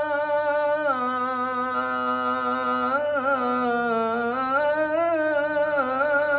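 A young man's solo voice chanting the Islamic call to prayer (azan) through a microphone, holding one long, ornamented melismatic phrase on 'hayya ʿala l-falah'. The pitch drops about a second in, dips again in the middle and climbs back near the end.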